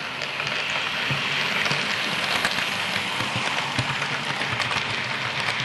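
Model train running past close by: a locomotive and a rake of box wagons rolling over the track with a steady, dense rattle of wheels on rail and many small ticks, growing a little louder over the first couple of seconds as it nears.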